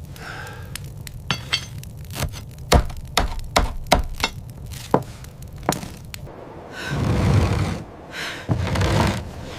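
A run of sharp knocks and thuds, about a dozen over five seconds, then two loud swells of rushing noise.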